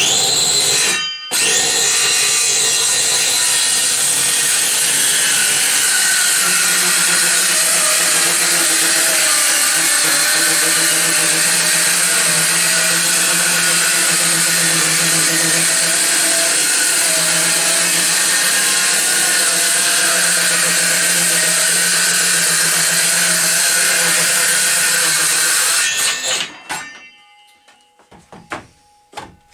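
Parkside PHKSA 20-LI A2 cordless circular saw running and cutting through wood for about 26 seconds. It drops out briefly about a second in, then runs steadily and winds down near the end.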